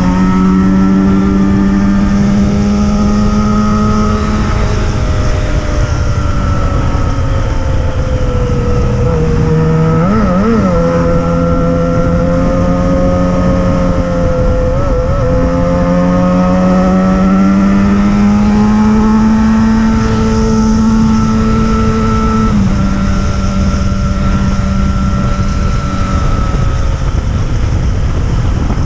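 Yamaha XJ6's 600 cc inline-four engine running under way at steady cruising revs, its pitch drifting slowly up and down, with brief wobbles about ten and fifteen seconds in. A steady rushing noise lies under the engine throughout.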